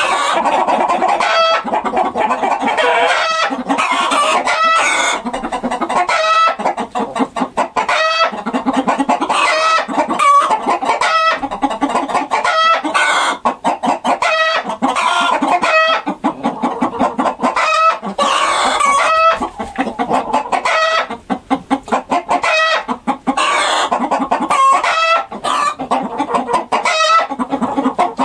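A flock of chickens clucking continuously, many short calls overlapping and repeating.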